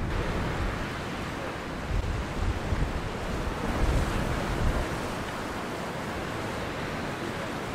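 Wind buffeting the microphone in uneven low gusts over a steady hiss of choppy sea.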